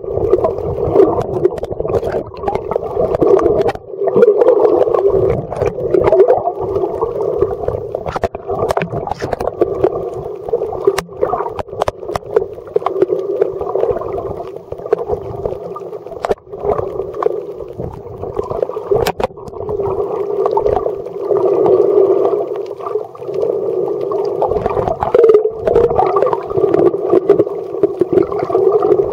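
Muffled underwater noise heard by a camera submerged in its waterproof housing: a steady rushing and sloshing of water, with scattered sharp clicks.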